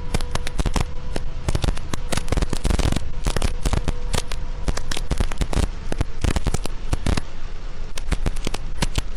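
Heavy rain pelting a car's windshield and roof: a dense, irregular crackle of drop impacts over a faint steady hum.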